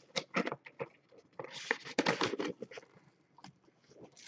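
Clear plastic wrapping from a trading-card box being crumpled and handled: irregular crinkling and rustling with small clicks, busiest about two seconds in.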